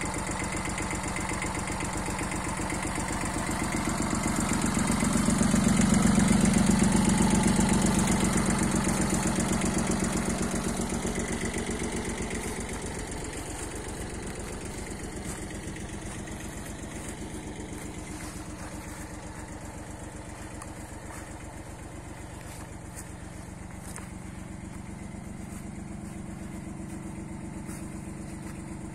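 Yanmar F17D compact tractor's diesel engine idling steadily. It grows louder for a few seconds around five to ten seconds in, then settles back to a fainter, even idle.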